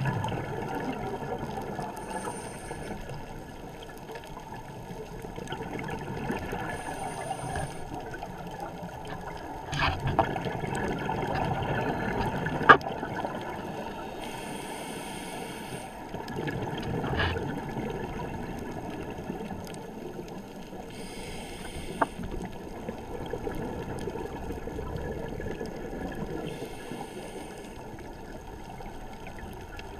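Underwater sound through a camera's waterproof housing: a scuba diver's regulator breathing, with a burst of exhaled bubbles hissing every five or six seconds. A few sharp clicks stand out, the loudest about thirteen seconds in.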